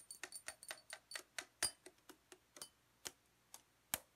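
A quick, uneven run of sharp clicks and taps, a few a second, from everyday objects used in place of instruments. Two louder knocks come about one and a half seconds in and near the end, and then the tapping stops.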